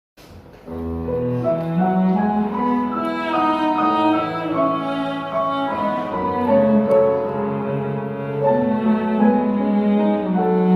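Instrumental music on piano and bowed strings, with a cello line, starting out of silence just after the opening and going on with slow, held notes.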